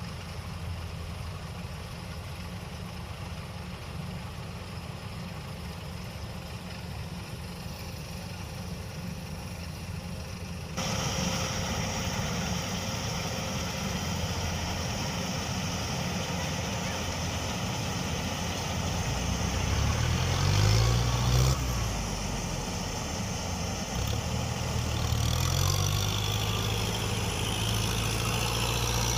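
Kubota DC105X combine harvester's diesel engine running steadily, getting abruptly louder about a third of the way in, then revved up and back down twice in the second half. The owner says it still runs smoothly after more than 1600 hours.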